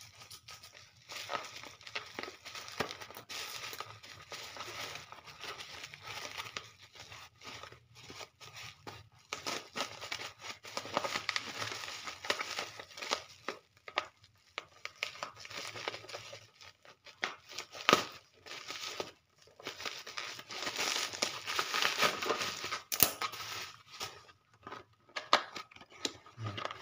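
Black plastic parcel wrapping crinkling and tearing as it is cut open with scissors and pulled off a box, in irregular spurts with a few sharp clicks.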